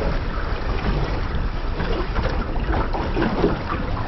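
Wind buffeting the microphone over choppy sea water slapping against a small boat's hull, a steady rushing noise without a break.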